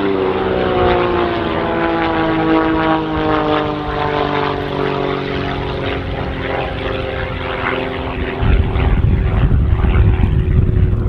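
Aerobatic biplane's propeller engine droning, its pitch sliding slowly down. About eight seconds in a louder low rumble comes in.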